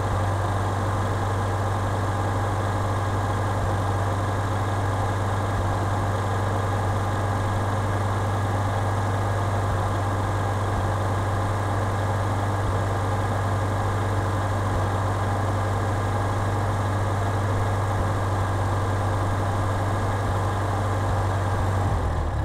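A Farmall Cub tractor's four-cylinder flathead engine running steadily, a low, even drone.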